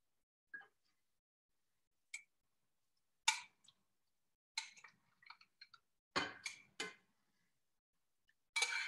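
A spoon clinking and knocking against a bowl and a cooking pot as chicken is spooned out of the bowl into a stew. The knocks come one at a time, with three in quick succession about six seconds in.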